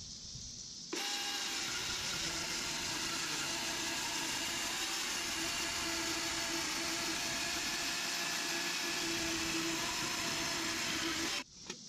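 DeWalt Flexvolt 60-volt electric chainsaw, mounted in a Granberg Alaskan chainsaw mill, running and cutting lengthwise through a small log, with a steady motor whine over the cutting noise. It comes in suddenly about a second in and cuts off suddenly near the end.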